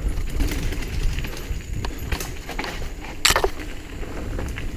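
Mountain bike rolling down dirt singletrack, heard from a helmet-mounted camera: a steady low rumble of tyres and wind with scattered clicks and rattles from the bike. There is a loud sharp clack about three seconds in.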